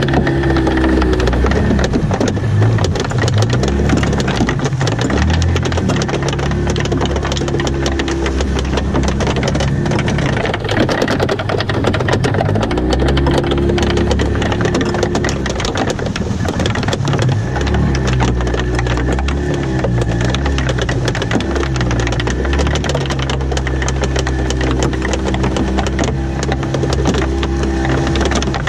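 Small open fishing boat under way with its outboard motor running and wind and water rushing past, as a fishing net runs out over the side. Dense noise with a constant patter of small clicks, over low tones that shift pitch in steps every second or two.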